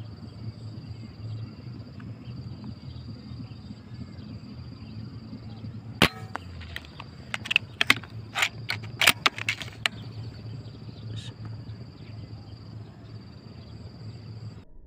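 A PCP air rifle fires once, a single sharp crack about six seconds in, followed over the next few seconds by a rapid run of sharp clicks and snaps. A steady high insect drone and a low rumble run underneath.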